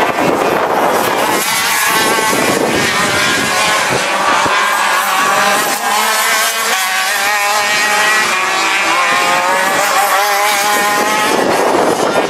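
Gearbox racing karts' two-stroke engines running at high revs, several at once, their pitch repeatedly rising and dropping as they accelerate and change gear.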